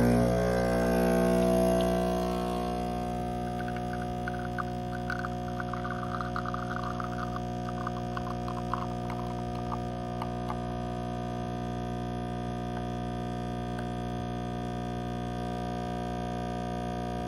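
Breville espresso machine's vibration pump humming steadily while the shot extracts, louder in the first couple of seconds and then even. From about four to ten seconds in there is a faint crackle of the espresso stream running into the glass cup.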